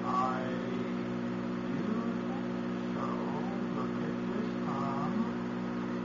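Steady electrical hum with a stack of overtones from a running microwave oven's high-voltage circuit.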